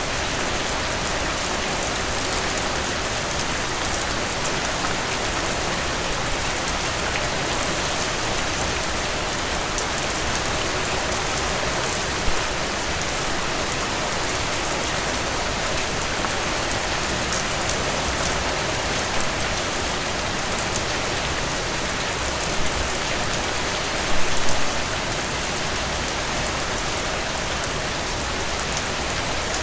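Steady rainfall with individual drops pattering on a surface. A few slightly louder drop impacts come midway and again about three quarters of the way through.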